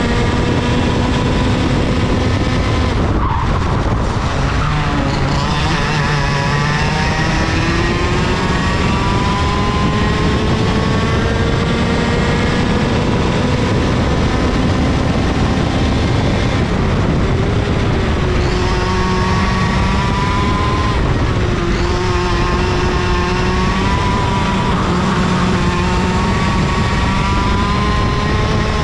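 IAME KA100 100cc two-stroke kart engine on track, heard from a camera mounted on the chassis. The revs climb steadily on the straights, with one long climb through the first half, and drop sharply when the driver brakes for a corner: about three seconds in, and twice more in the second half.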